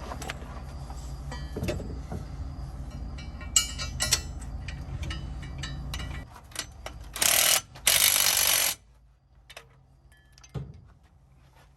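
Hand tools and metal hardware clicking and clinking during hub assembly work, over a steady low hum that stops about six seconds in. About seven seconds in come two short, loud bursts of noise, the second about a second long, then a few faint clicks.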